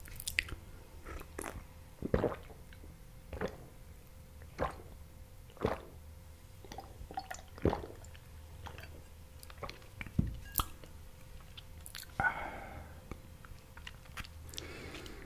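Close-miked gulps as a glass of juice is drunk down, one swallow about every second.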